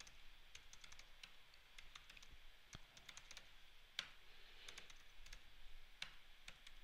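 Faint, irregular typing on a computer keyboard: single keystroke clicks with short gaps between them.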